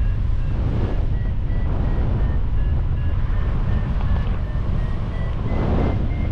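Wind buffeting the microphone in a steady low rumble, with a faint melody of short notes over it.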